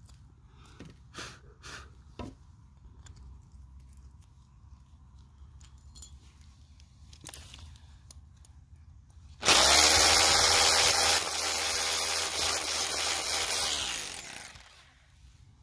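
DeWalt hammer drill with a long masonry bit boring an anchor hole into a rendered wall, running for about five seconds from about nine and a half seconds in, dipping slightly partway and winding down near the end. Before it, a few light knocks and handling sounds.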